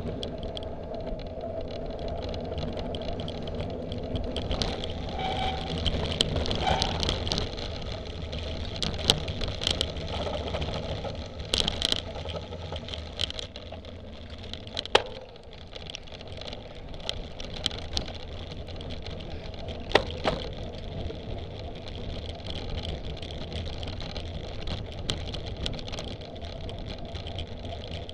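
Cyclocross bike ridden fast over a rough dirt trail: a steady rumble of tyres and wind on the microphone, with the bike rattling and a few sharp knocks over bumps.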